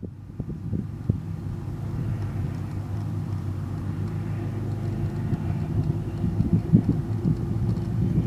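Meteor-2020 hydrofoil's diesel engines running with a steady low drone that grows gradually louder.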